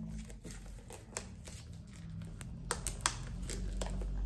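A hardcover book being handled: scattered light taps and clicks of paper and cover as pages are turned and the book is closed.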